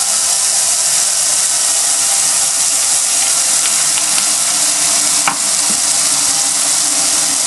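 Kitchen faucet running water steadily into a plugged stainless steel sink, filling the basin to pressure-test a newly fitted strainer basket for leaks. A single click sounds about five seconds in.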